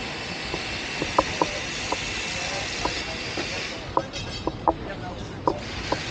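A steady high-pitched hiss carrying a thin, even tone, which cuts out for about a second and a half just before the 4-second mark and comes back near the end. Scattered sharp clicks run through it.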